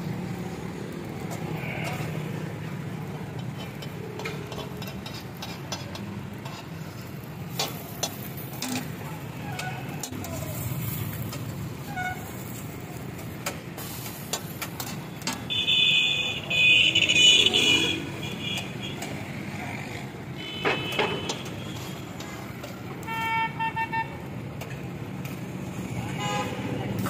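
Street traffic with vehicle horns honking over a steady low traffic hum: one long, loud honk a little past the middle, then two shorter honks near the end. Sharp clicks of a cleaver's blade tapping and scraping on a flat steel griddle are scattered throughout.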